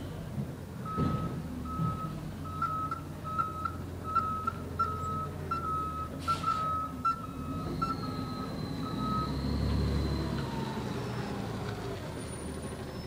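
Garbage truck's reversing alarm beeping steadily, a little more than once a second, over the running engine. The beeping stops about nine seconds in, as the engine comes up with a rising whine while the truck pulls forward.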